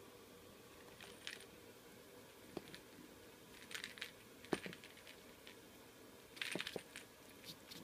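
Short bursts of light metallic jingling, four or five times, as a cat rolls and bats at a string toy, with one sharp tap about four and a half seconds in.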